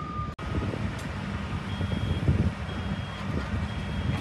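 Reversing alarms beeping over the rumble of working trucks or heavy vehicles. After a cut about half a second in, a higher-pitched backup alarm beeps about once a second.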